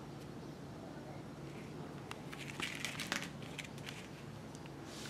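Rubber sewing-machine drive belts being handled on a tabletop: a cluster of light clicks and rustling from about two to three and a half seconds in, over a steady low hum.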